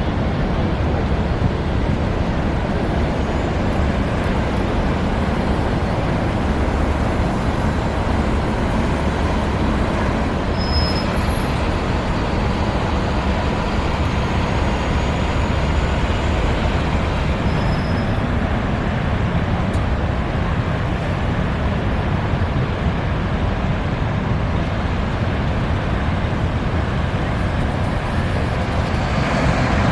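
Steady roar of Niagara Falls' water, an even rushing noise that holds the same level throughout, with two faint short high chirps in the middle.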